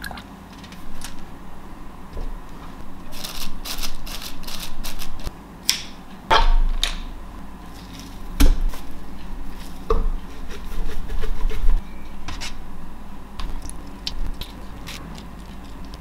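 Metal knocks, scrapes and clanks from a stainless steel vertical sausage stuffer being packed with sausage meat and cranked, with a few heavier thumps in the middle.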